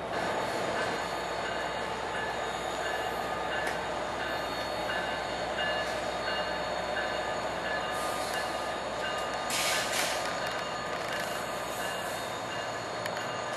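NJ Transit PL42AC diesel locomotive 4028 and its multilevel coaches pulling out of a station, the diesel running and the cars rolling past at low speed. A faint high tone repeats about twice a second, and two short hissing bursts come about two-thirds of the way in.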